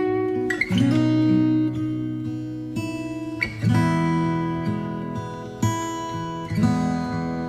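Background music: acoustic guitar strumming and picking sustained chords, with a new chord every second or two.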